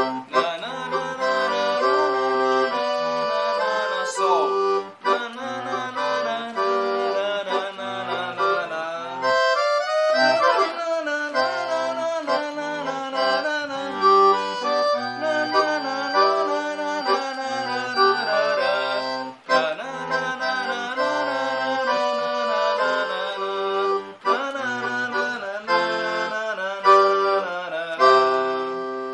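Roland V-Accordion, a digital piano accordion, playing a sertanejo tune: a melody on the right-hand keys over an alternating bass-note-and-chord accompaniment on the left-hand buttons, moving through C, G and F.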